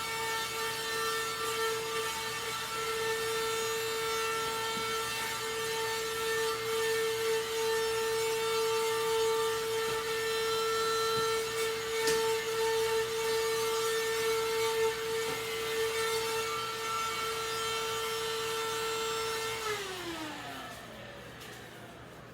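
Portable vacuum cleaner motor running with a steady whine, then switched off about 20 seconds in, its pitch falling as the motor spins down.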